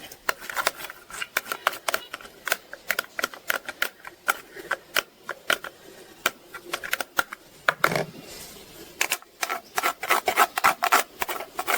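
Rapid, irregular clicks and light scraping from hand kitchen work with utensils, with a short pause about two-thirds of the way through.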